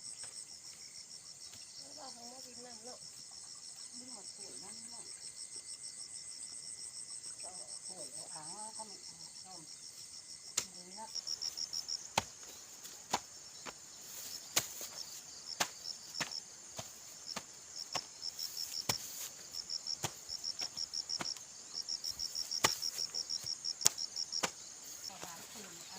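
Insects chirping in a steady high pulsed trill. From about halfway, irregular sharp knocks start and grow more frequent, louder than the chirping.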